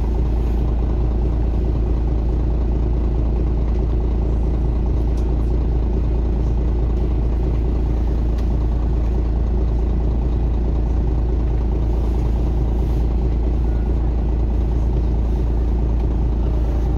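City bus engine running, heard from inside the passenger cabin as a steady, deep rumble.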